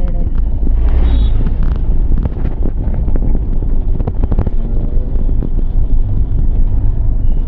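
Running noise of a moving road vehicle: a steady low rumble with wind buffeting the microphone and occasional rattles.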